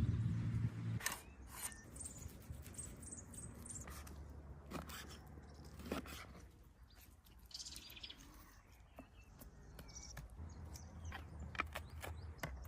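Swedish torch log fire crackling, with scattered irregular pops and snaps; small birds chirp faintly now and then.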